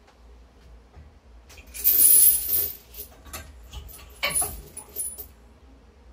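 Heavy-duty steel lifting chains rattling and clinking as they are lifted and hung on the end of a loaded barbell. A loud jangle comes about two seconds in, and a shorter run of clinks about four seconds in.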